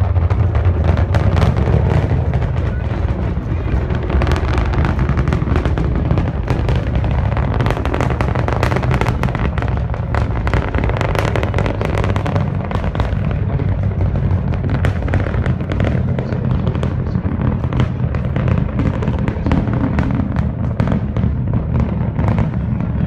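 Falcon 9 rocket's nine-engine first stage heard from the ground during ascent: a loud, steady, deep rumble shot through with dense crackling. The crackle dulls a little about halfway through.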